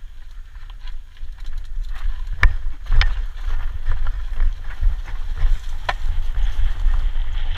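Downhill mountain bike running over a rocky gravel trail: tyres crunching over loose stones and the bike rattling, with sharp knocks as it hits rocks, the loudest about two and a half and three seconds in. Wind rumbles on the microphone throughout, and the noise grows louder after the first second as speed builds.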